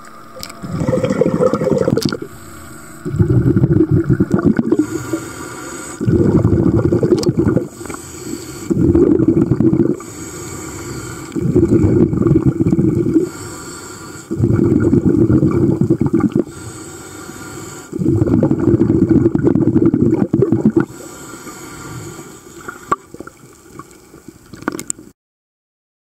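Scuba diver breathing through a regulator underwater: about seven loud bubbling exhalations, one every few seconds, with a fainter hiss of inhalation between them. The sound stops abruptly near the end.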